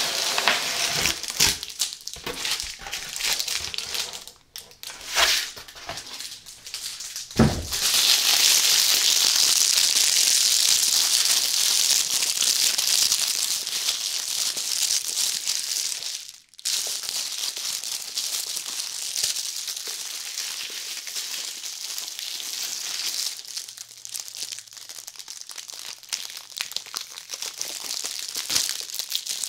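Cardboard mailer box being handled, scraping and rustling for the first few seconds, with a thump about seven seconds in. Then clear plastic wrap crinkling steadily as it is squeezed and worked around a small hard case, with a brief pause near the middle.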